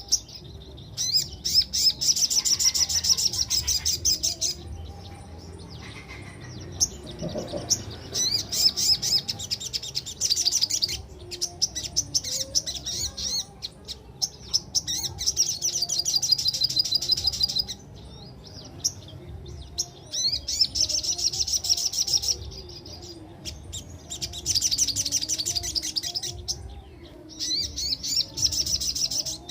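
Sogok ontong songbird singing repeated fast, high rolling trills. Each volley lasts a few seconds and is separated by short pauses, about six in all.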